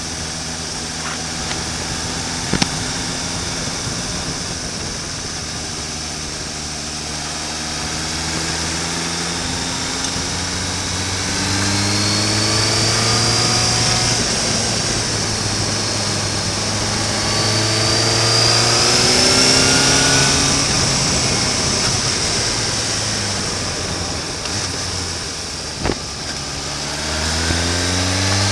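Suzuki GSR750's inline-four engine on the move, running at low revs at first, then rising in pitch three times as it accelerates, over steady wind noise. Two sharp knocks, about three seconds in and near the end.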